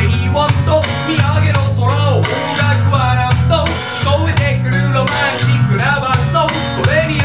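A man singing a pop song over backing music with a steady pulsing bass line.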